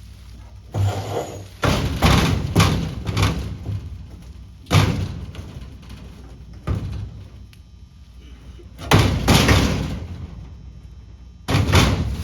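A series of heavy knocks, thumps and clatters, about six of them at irregular spacing, from a fuel cell and metal parts being shifted and bumped into place under a race car.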